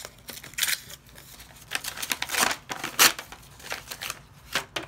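A sheet of white paper being folded and creased by hand: a series of short paper rustles and crinkles, the loudest about three seconds in.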